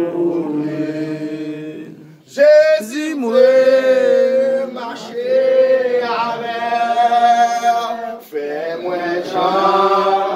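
A church congregation singing a slow hymn, a man's voice leading, on long held notes. The singing dips briefly about two seconds in before the next line starts.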